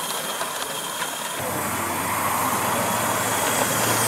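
Steady hiss and running noise of a small coal-fired live-steam garden-railway locomotive passing with its goods train. About a second and a half in, a steady low hum joins it and the sound grows slightly louder.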